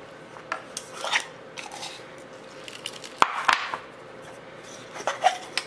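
A utensil clicking and scraping against a plastic steamer bowl as steamed green beans are tossed. There are scattered light knocks, and the sharpest comes about three seconds in.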